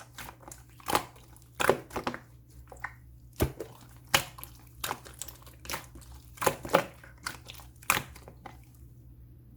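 Clear slime being squeezed and pressed by hand, giving irregular sticky pops and squelchy clicks, a few a second. The pops stop about a second before the end.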